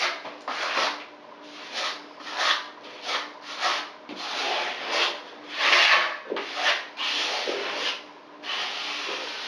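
Putty knife scraping over fiberglass mesh tape on cement backer board, pressing the tape flat along the wall seams in about a dozen quick strokes. The longest, loudest stroke comes about six seconds in.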